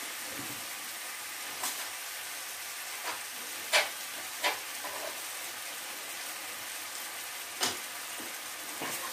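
Diced courgette, garlic and flaked salt cod frying in a pan, a steady sizzle with a few sharp clicks scattered through it.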